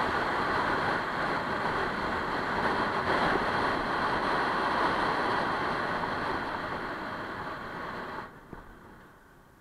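Steady wind rush on the microphone of a camera on a moving motorcycle, mixed with road noise. About eight seconds in it drops off sharply and dies away.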